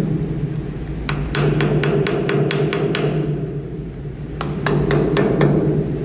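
Hammer blows on a seized steel flanged hub fitting, tapped in quick runs of several strikes a second. The strikes come in two runs with a pause between them, over a steady low machinery hum.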